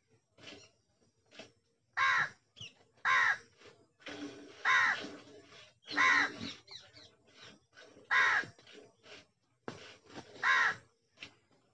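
A crow cawing repeatedly, six loud short caws coming every one to two seconds, with fainter short sounds between them.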